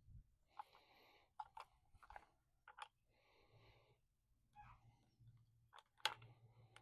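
Faint handling sounds of pressure washer hose fittings being put together by hand: scattered small clicks and a few soft rubbing or breathy rustles.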